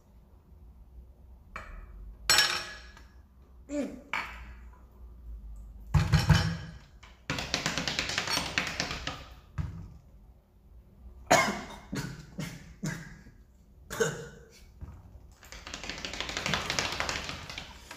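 Two people reacting to biting into raw lemon: coughs, strained breaths and two long hissing exhales, with scattered spoon taps and a knock on the table about six seconds in.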